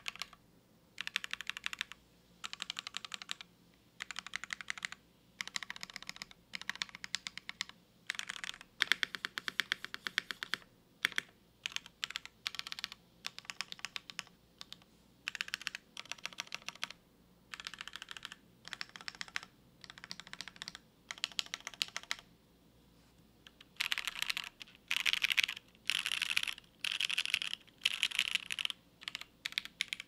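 Typing on a DriftMechanics Austin mechanical keyboard with lubed Silk Olivia switches on an FR4 plate and GMK Demon Sword keycaps. Rapid keystrokes come in bursts of about a second with short pauses between them. The bursts grow louder and brighter about six seconds before the end.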